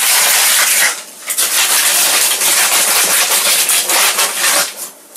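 Loud rustling and rubbing as keepsakes are handled and packed in a box, in two long stretches with a short break about a second in.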